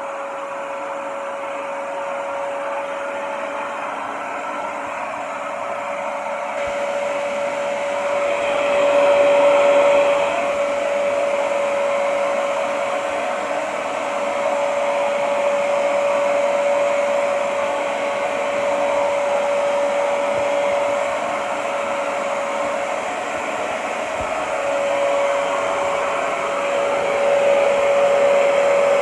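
Hoover Pet Expert carpet cleaner's motor running, a steady whine over a rush of air. The rush grows fuller and louder about seven seconds in.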